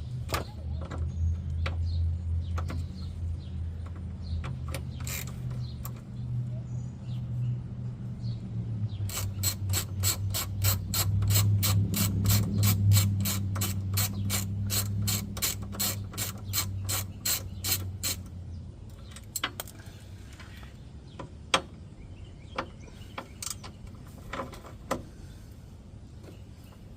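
Hand ratchet clicking while bolts are backed out under the car: a fast, even run of clicks, about four a second, starting about a third of the way in and lasting roughly nine seconds, with scattered single clicks and knocks before and after. A steady low hum runs under the first two-thirds.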